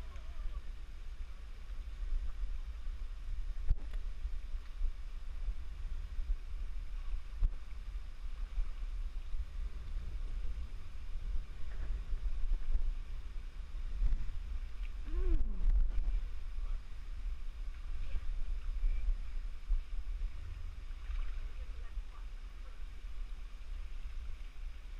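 Water splashing and sloshing as legs wade through a shallow stream, over a steady low rumble on the microphone.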